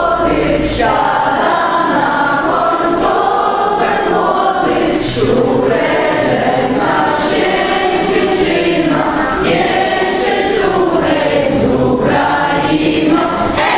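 Children's choir singing together, many young voices in sustained sung phrases.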